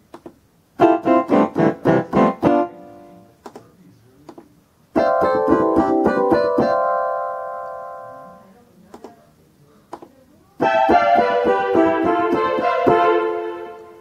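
Concertmate electronic keyboard playing short demonstration phrases on different preset instrument voices. First comes a quick run of about eight notes, then a held sound that slowly fades out, then a fuller phrase of notes that dies away near the end.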